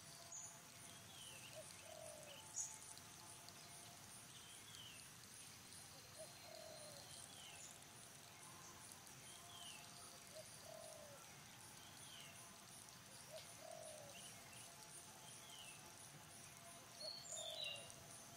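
Faint forest ambience: a bird repeats a short call about every one and a half to two seconds, over a steady high pulsing of insects. There is a single sharp tick a few seconds in and a brief louder chirp near the end.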